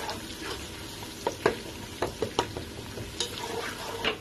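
Sliced onions sizzling as they fry in hot oil in a pot while a spatula stirs them. About six sharp clicks of the spatula against the pot are spread through the sizzle.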